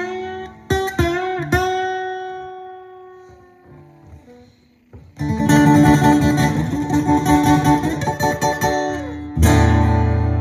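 Solo acoustic guitar: a few picked notes bent up in pitch, the last one left ringing and fading away. After a brief pause, busy strumming starts about five seconds in and ends on a loud chord struck near the end and left ringing.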